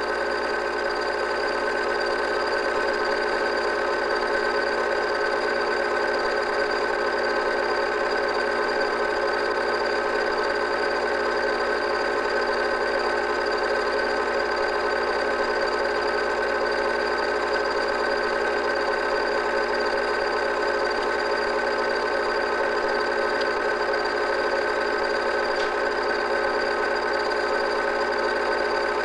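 Steady mechanical whir of an 8mm film projector running, the only sound on a silent home movie transferred to video.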